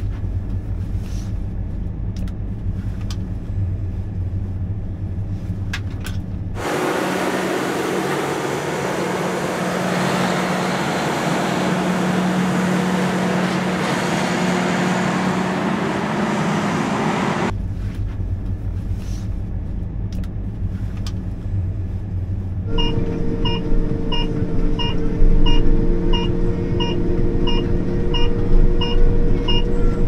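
Combine harvester driving on the road, heard mostly from inside the cab as a steady low engine drone. For about ten seconds in the middle it gives way to a broader hissing machine noise. Near the end a regular electronic beep sounds about three times every two seconds over the drone.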